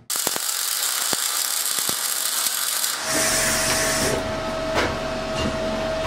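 Electric welding arc crackling for about three seconds with a few sharp pops as the steel sleeve is tack welded, then a steady hum with a single held tone.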